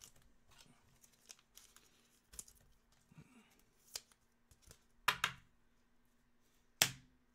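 Trading cards and a rigid plastic top loader being handled: faint rustling with a few sharp clicks and taps, the loudest a double click about five seconds in and a single one near the end.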